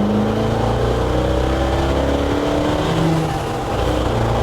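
A 1966 Chevy C10's 383 stroker small-block V8 accelerating hard under load, its note climbing steadily in pitch. About three and a half seconds in the note dips briefly as the 5-speed manual is shifted up, then it pulls again at a lower pitch.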